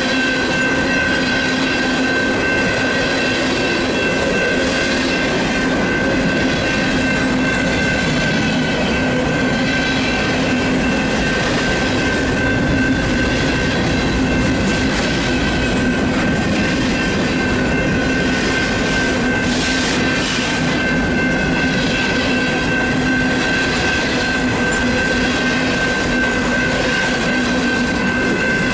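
Freight cars (tank cars, covered hoppers and boxcars) rolling steadily past a grade crossing: a continuous rumble and clatter of wheels on rail. Over it the crossing's Graham White electronic bell rings without a break.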